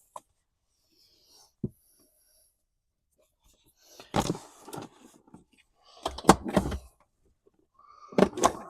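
A single sharp click, then three short bursts of knocking and clattering, like car parts or tools being handled and set down, with the loudest burst about six seconds in.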